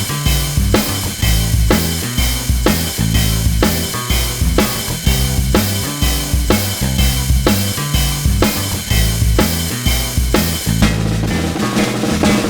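Background music with a steady drum-kit beat and a bass line; about eleven seconds in the high end drops away briefly, as in a transition, before the beat comes back.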